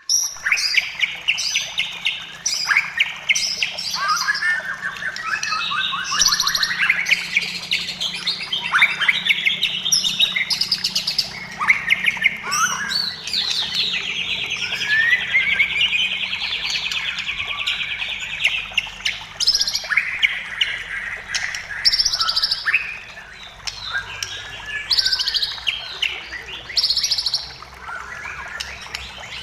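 White-rumped shama in full song: a long, varied run of whistled phrases, fast rattling trills and chattering notes, with a long buzzy trill about halfway through.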